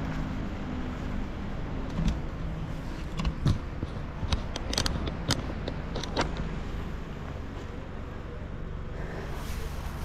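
Steady low rumble of wind and ride noise on the microphone while riding an electric bicycle, with scattered sharp clicks and knocks between about two and six seconds in.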